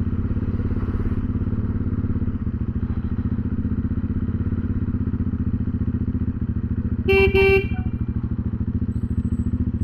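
Bajaj Dominar 400's single-cylinder engine running at low road speed with a steady, rapid exhaust beat, its silencer come loose at the gasket so the exhaust leaks. About seven seconds in, a horn gives two short beeps.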